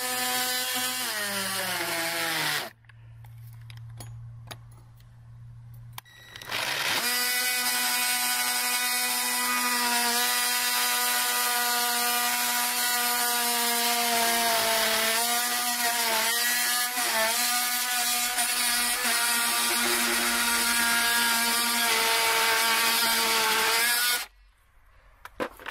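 Oscillating multi-tool cutting through painted cedar lap siding with a half-round blade, a loud, steady, high buzz. It winds down and stops about two and a half seconds in, starts again about four seconds later, and dips in pitch a few times midway as the blade bites. It cuts off shortly before the end.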